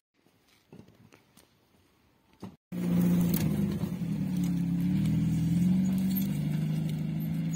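GAZelle light truck's engine running steadily with a slightly wavering pitch as the truck pulls away loaded with logs. It comes in suddenly about a third of the way in, after a few faint clicks.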